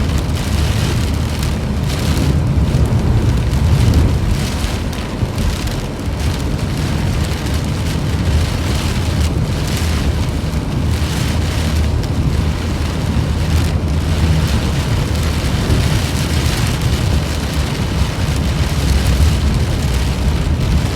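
Rain falling steadily, a continuous hiss with a strong low rumble beneath it.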